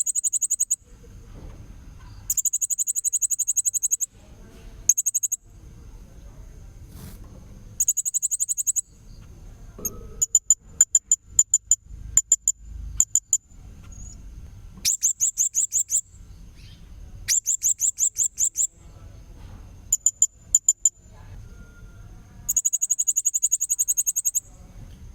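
Blue-crowned hanging parrot (srindit) giving repeated bursts of very high, rapid trilling calls, each about a second long, with a run of separate sharp chirps in the middle. A faint steady high tone runs beneath.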